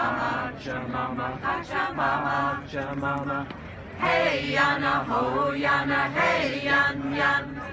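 A small choir of mixed men's and women's voices singing together unaccompanied, getting louder about four seconds in.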